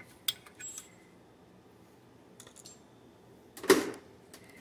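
Steel pin gauges and their case being handled: a few light metallic clicks and clinks, then one louder clack near the end.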